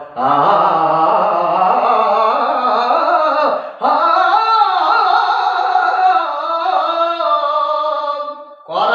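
A man singing a Telugu verse unaccompanied, in long drawn-out, wavering notes. It comes in two long phrases, with a brief breath about three and a half seconds in.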